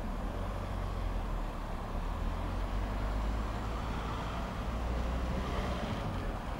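Class 31 diesel locomotive at the head of a test train approaching slowly, its engine a steady low rumble.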